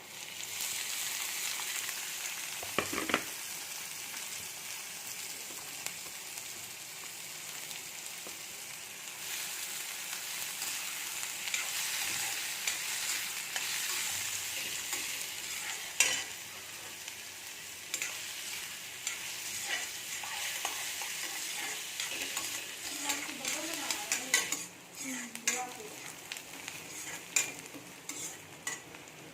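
Food sizzling in hot oil in a pan, which is stirred with a spatula. The spatula knocks and scrapes against the pan now and then: sharply about three seconds in, loudest about sixteen seconds in, and in a quick run of clicks near the end.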